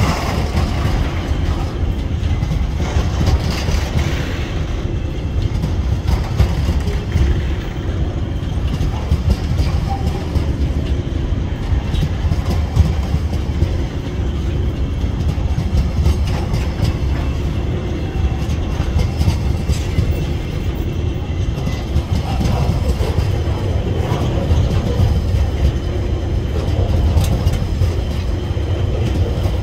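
Container wagons of a freight train rolling past close by: a steady rumble of steel wheels on rail, with occasional clicks as the wheels pass over the track.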